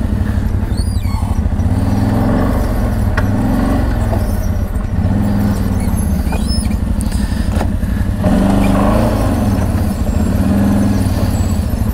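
CFMoto X8 ATV engine revving up and easing off over and over, its pitch rising and falling every second or two as it climbs a steep forest track, with wind rumbling on the helmet-mounted microphone.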